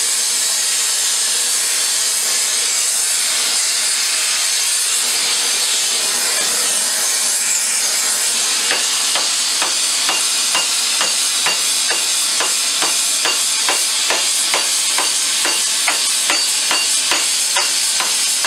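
Gas torch flame hissing steadily as it heats the end of a steel pipe. From about halfway through, a run of light, evenly spaced knocks comes in, about two or three a second.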